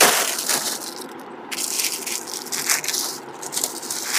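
Plastic packets of jewellery crinkling and rustling as they are rummaged through and pulled off a stocked shelf, loudest in a sudden burst at the start.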